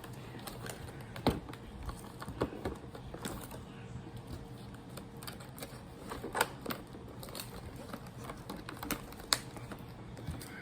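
Irregular light clicks and taps of a doll box's plastic and cardboard packaging being worked open with scissors.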